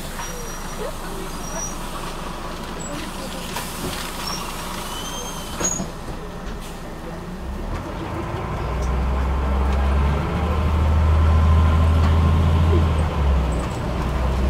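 Interior sound of a Scania N94UB city bus. A hiss of air comes about four seconds in. From about halfway the engine's deep drone swells as the bus accelerates, and it dips briefly near the end at a change of the ZF automatic gearbox.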